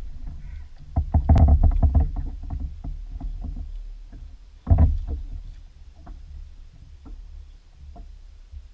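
Knocks and clatter of gear against a plastic fishing kayak's hull: a burst of rattling knocks about a second in and a single hard thump midway, with lighter ticks over a low rumble.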